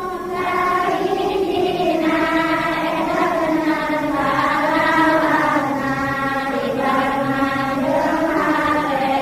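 Voices chanting together in a slow, drawn-out melodic recitation, with long held notes that glide gently in pitch.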